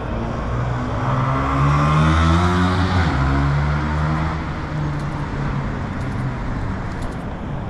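A car driving past at a road junction, its engine note rising as it accelerates, loudest about two seconds in and then easing off, over steady street traffic noise.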